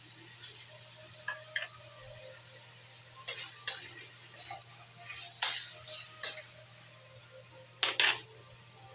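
A spatula scraping and knocking against a metal wok in a string of sharp, uneven strokes as chicken, potatoes and vegetables are stirred, over a steady quiet sizzle of the food frying.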